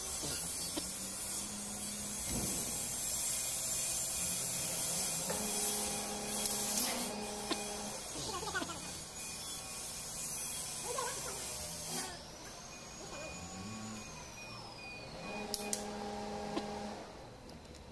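Steady hissing workshop noise that cuts off about twelve seconds in, with a few sharp metal clicks near the end as a torque wrench works on cylinder head bolts.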